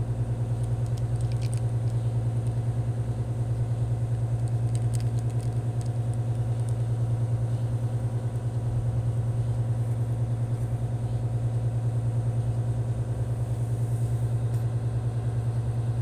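A steady low motor drone with a fast, even pulse, unchanging throughout, with a few faint clicks about one and five seconds in.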